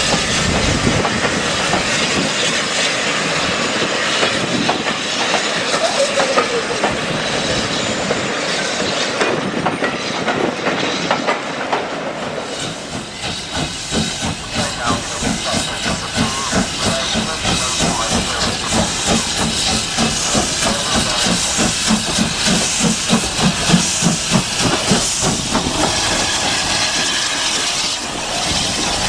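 Steam locomotives. First, a saddle-tank engine hisses loudly with escaping steam as it pulls away. From about thirteen seconds in, a steam train runs in with a regular rhythmic beat; this is the Caledonian Railway 439 class 0-4-4 tank engine no. 419.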